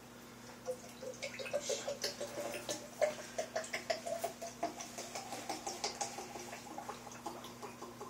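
Tapatío hot sauce glugging and spluttering out of an upside-down squeezed bottle into a glass beer mug. Starting about a second in, it comes as a rapid run of wet pops, and the pitch rises as the mug fills.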